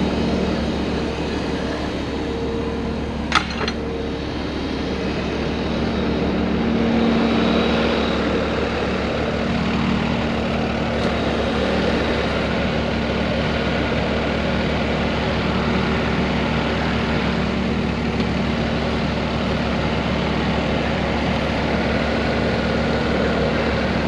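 A heavy diesel engine idling steadily, with a single sharp click about three seconds in.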